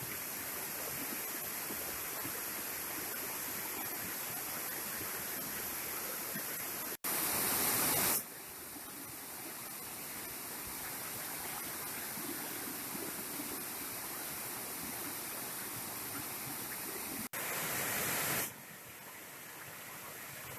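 Waterfall and mountain stream water rushing steadily. Twice it cuts off abruptly and jumps to a louder, hissier rush for about a second before settling back.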